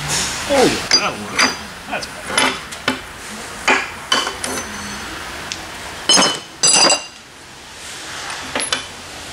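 Steel suspension parts and tools knocking and clinking together on a metal workbench as they are handled: a run of separate clanks, with two loud ringing clinks about six and seven seconds in.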